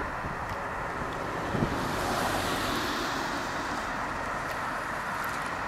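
Steady distant rumble and hiss of road traffic with some wind on the microphone, swelling for about a second and a half about two seconds in.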